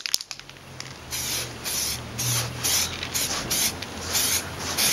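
Aerosol can of Hammerite rust-preventing paint spraying a steel panel in short passes: a run of brief hisses, about two to three a second, starting about a second in.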